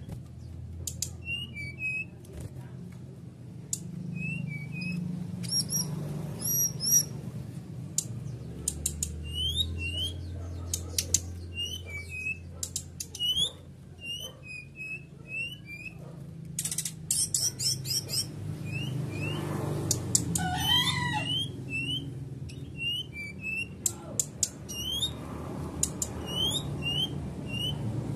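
Caged songbird chirping over and over: short chip notes with a rising flick, coming in quick bursts, with one longer falling call about two-thirds of the way through. Wing flutters as it hops on the perch. The chirping comes from a bird in breeding condition (birahi). A steady low rumble runs underneath.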